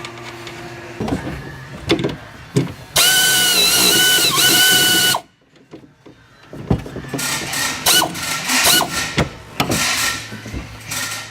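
A cordless power tool runs hard for about two seconds with a whine, spinning nuts onto the upper strut mount studs, then stops abruptly. Metal knocks and clinks of tools and parts come before and after it.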